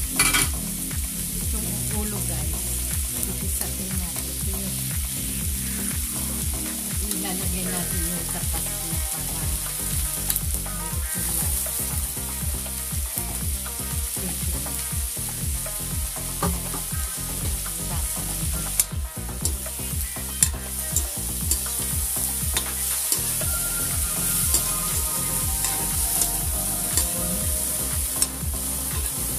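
Oil sizzling steadily in a wok as tofu cubes fry, with a metal spatula clicking and scraping against the pan as shrimp are stirred in; a few sharper knocks come around two-thirds of the way through.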